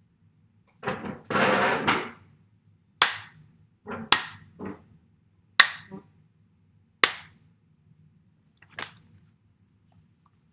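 Hands clapped together in a crocodile-jaw snapping motion: about five sharp claps a second or so apart, the last one fainter. A short noisy sound comes about a second in, before the claps.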